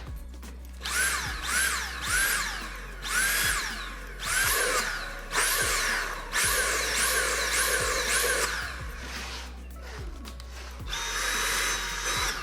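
Dyson V8 cordless vacuum motor whirring up and down in a series of short bursts, each spin-up rising in pitch and falling away, then running steadily with a high whine near the end. The repaired battery is powering it normally.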